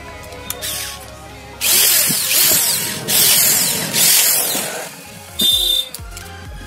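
Rough mechanical whirring from the Hitachi G10SS angle grinder as it is worked on by hand, newly fitted with a replacement armature. It comes as three loud rushes of about a second each, then a shorter one carrying a high whine about five and a half seconds in, over faint background music.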